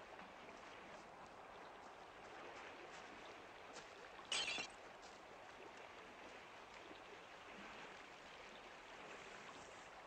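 River rushing faintly and steadily, with one brief loud scrape about four seconds in.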